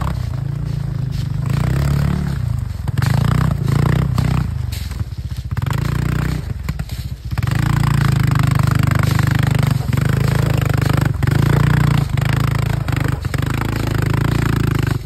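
ATV engine running at crawling speed, easing off about halfway through and then revving back up, with scraping and clattering as the quad works over rocks and branches in a gully.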